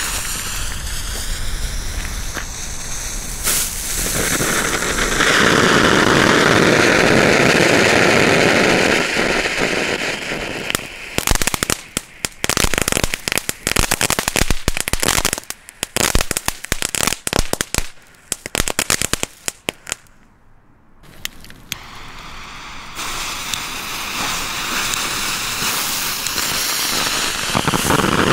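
Lesli Red Vulcano youth-firework fountains spraying with a loud, steady hiss. This turns into a long stretch of rapid crackling, which stops about twenty seconds in. After a brief lull, another fountain starts hissing.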